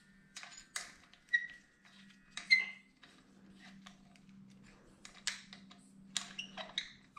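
Folding hex-key tool clicking and tapping against the pinch bolts of a motocross bike's triple clamp as they are tightened on the fork tubes. The taps are short and metallic, some with a brief ring, and the loudest comes about two and a half seconds in.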